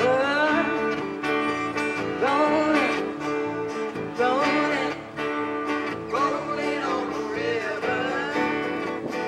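Live country-style band playing: strummed acoustic guitars with electric bass and electric guitar, and a woman singing the melody over them.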